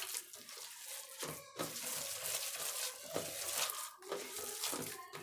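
A hand beating a wet batter of grated bottle gourd and gram flour in a steel bowl: repeated squelching, slapping strokes against the bowl.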